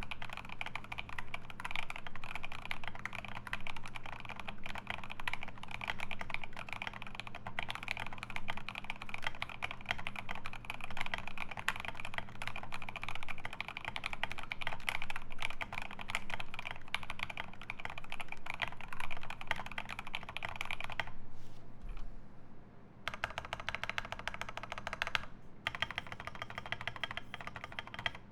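Fast typing on a GMMK Pro mechanical keyboard with lubed Alpaca linear switches, an aluminium plate and ASA keycaps: a dense, even clatter of keystrokes. The typing stops for about two seconds near the end, then resumes.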